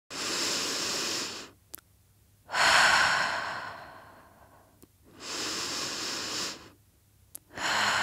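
Amplified deep breaths: three long breaths, the second starting sharply and fading away. Short clicks fall in the quiet gaps between them, and another breath near the end runs into music.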